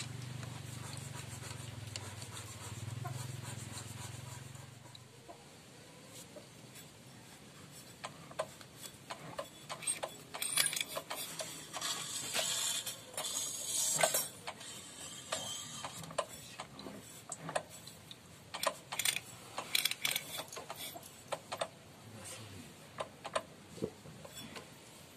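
Irregular light metal clinks and rattles of a motorcycle clutch assembly being handled and worked loose from the engine case. A low hum fades out about five seconds in, before the clinking starts.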